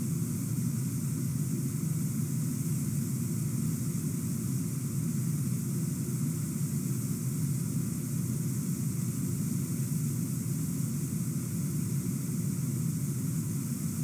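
Waterfall rushing: a steady, unchanging rush of water, deep with a hiss on top.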